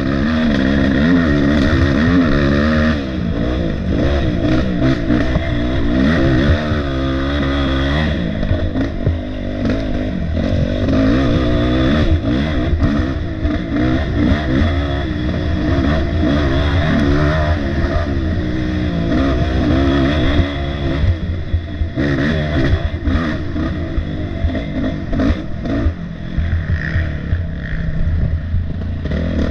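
Dirt bike engine ridden hard in a hare scramble race, heard close up on board, the revs rising and falling over and over every second or two.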